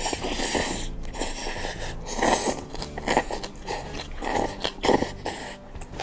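Close-miked eating: a run of crunchy bites and chewing, with the loudest crunches a little after two seconds in and again near five seconds.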